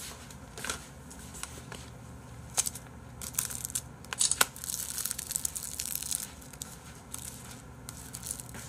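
A few sharp light clicks of utensils on dishes, then from about three seconds in a stretch of crinkling and tearing of something thin and crisp being handled, which dies away about three seconds later.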